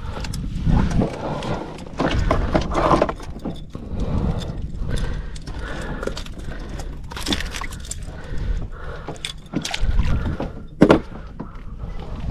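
Wind buffeting the microphone, a rumble that rises and falls, under irregular clicks and rattles of handling noise from fishing gear, with one sharp knock about eleven seconds in.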